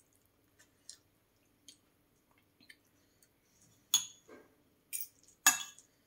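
Metal spoon and fork tapping and scraping against a ceramic plate and foil: a few light taps, then three sharper clinks from about four seconds in.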